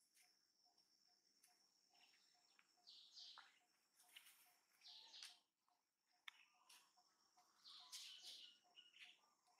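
Faint outdoor ambience: birds chirping now and then, with the loudest chirps about three, four, five and eight seconds in, over a steady high insect whine.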